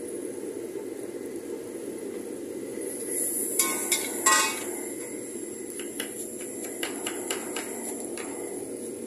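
A metal spatula scraping and clanking against a steel wok while stir-frying greens, loudest a few seconds in, over a steady low rushing noise. Then a cleaver chops cabbage on a wooden cutting board, about eight quick chops.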